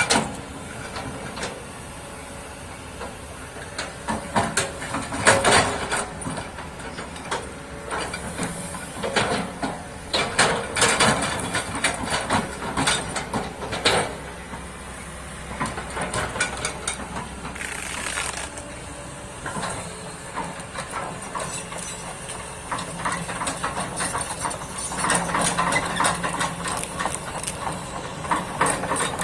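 Kobelco excavator digging earth: its engine runs under irregular scraping, crunching and knocking as the bucket works the soil, with several louder bursts of crunching and hiss.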